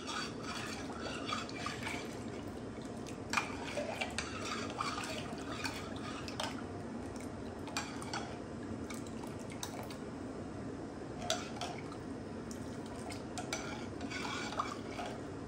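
A steel spoon stirring and mashing cooked toor dal in a pressure cooker pot: a steady wet stirring noise, with the spoon clinking against the side of the pot now and then.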